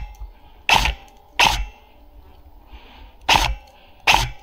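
Hard, fast breaths close to the microphone: about five loud breaths, each with a short noisy tail, with a pause of nearly two seconds in the middle.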